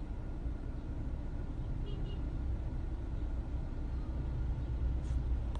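2018 Mitsubishi Eclipse Cross idling with the air conditioner running: a steady low engine rumble, with a brief faint high chirp about two seconds in and a light click near the end.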